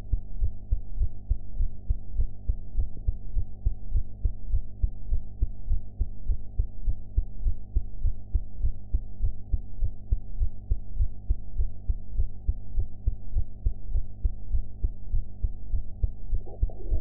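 A young woman's heartbeat: steady, evenly spaced low thumps with a constant low hum underneath.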